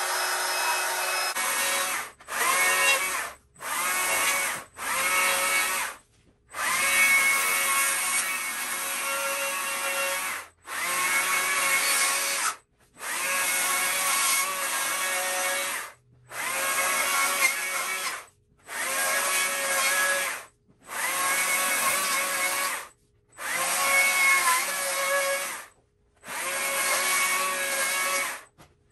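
Battery-powered Stihl chainsaw carving a small softwood trunk, run in about a dozen short trigger bursts of one to four seconds. Each burst spins up with a rising whine and cuts off sharply to silence, with no idling between cuts.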